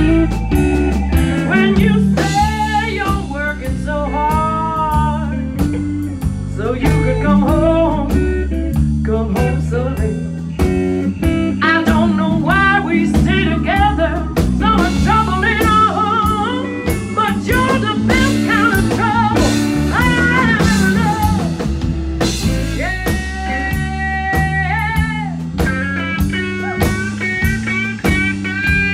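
Blues band playing an instrumental break: guitar over bass and drums.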